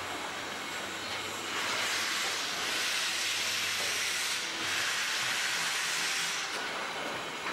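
Steam locomotive, Western Maryland Scenic Railroad's 1309, a 2-6-6-2 articulated, venting steam in a loud hiss for about five seconds, broken briefly near the middle, over the low rumble of freight cars rolling slowly past.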